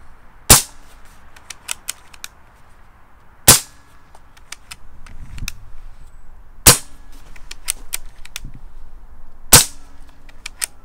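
Effecto Zeon side-lever bullpup PCP air rifle fired four times, about three seconds apart. After each shot come a few quieter clicks as the side lever is worked to cock the action and index the next pellet from the magazine.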